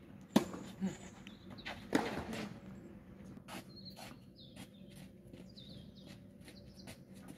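Tennis ball struck by a racket twice, sharp hits about a second and a half apart, the first the louder, followed by fainter ticks and birds chirping.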